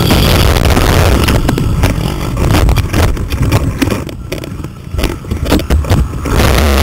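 Pit bike's small single-cylinder engine and wind noise heard from an onboard camera at speed. About two and a half seconds in, the engine drops away and the sound turns into scattered knocks, rattles and scrapes for a few seconds, then the engine comes back loud near the end.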